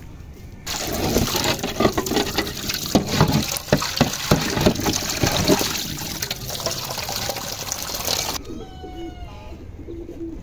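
Water gushing from a pipe into a plastic tub and splashing as it fills. It starts about a second in and stops suddenly near the end.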